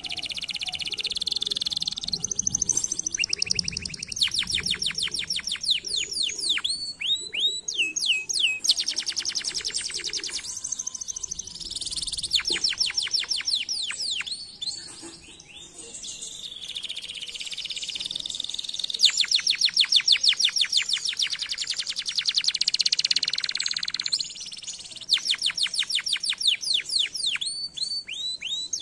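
Domestic canary singing a long song of rapid trilled tours: fast runs of many repeated notes, some sweeping down in pitch, changing from one run to the next with short gaps, and a brief lull about halfway through.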